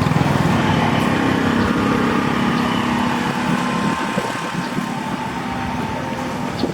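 A small engine running steadily, a little quieter in the second half.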